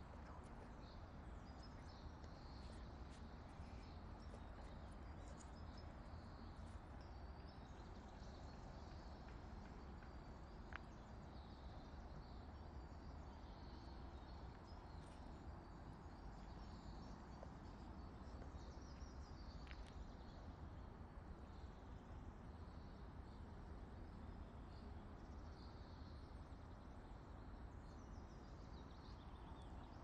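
Faint birdsong: many small chirps and trills from several birds, over a low steady rumble.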